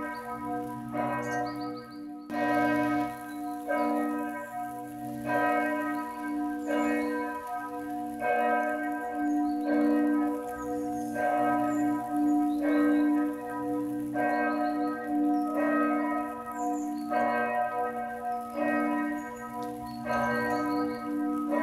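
Church bells ringing, a new stroke about every second or so over a long, overlapping hum of ringing tones.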